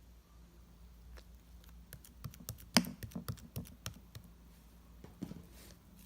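A quick run of light clicks and taps, like typing or tapping, with one much sharper click in the middle of the run and a few more near the end.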